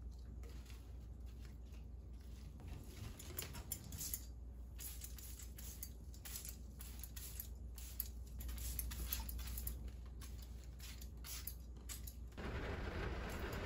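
Scattered faint, irregular clicks and ticks over a low steady hum; about twelve seconds in, the sound switches abruptly to a louder, steady hiss.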